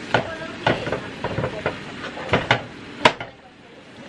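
A plastic spatula knocking and scraping against a frying pan as ground beef is stirred and broken up, with a steady sizzling hiss underneath. The knocks are irregular; the loudest comes about three seconds in, and it goes quieter after that.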